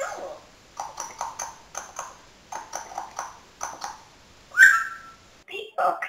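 African grey parrot giving a string of short, speech-like syllables in small groups, with one louder, higher call about four and a half seconds in.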